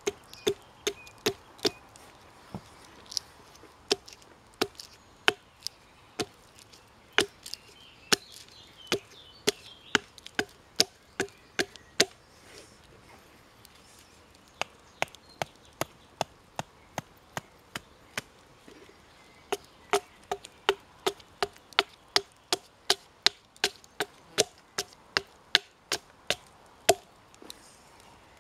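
Small hatchet chopping into a short length of wood on a log block, roughing out a spoon blank: sharp separate knocks, one to three a second, with a lull of a few seconds past the middle.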